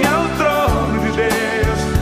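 Brazilian gospel music: a gliding melodic lead line over held bass notes, with a few sharp hits.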